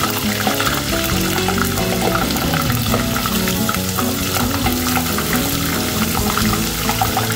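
Snakeskin gourami deep-frying in hot oil in a stainless steel pot, a dense steady crackling sizzle, while the fish is turned with metal tongs. Background music plays underneath.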